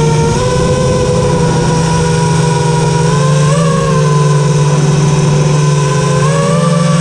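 FPV racing quadcopter's Emax RS2205 2300kv motors spinning 5-inch tri-blade props, a steady loud whine with brief rises in pitch about three and a half seconds in and again near the end as the throttle changes.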